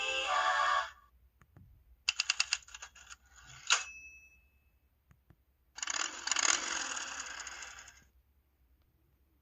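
LG-KH8000 phone message tones played one after another: the tail of a sung a cappella tone, then a typewriter tone of rapid key clacks ending in a bell ding about three and a half seconds in, then a motorcycle engine tone lasting about two seconds.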